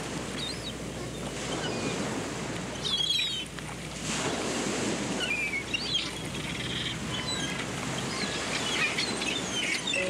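Ocean surf breaking and washing up a sandy beach in repeated swells, with short scattered bird calls over it.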